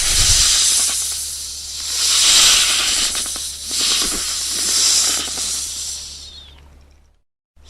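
Snake hissing in threat: a series of loud, breathy hisses that swell and ease several times, then die away near the end.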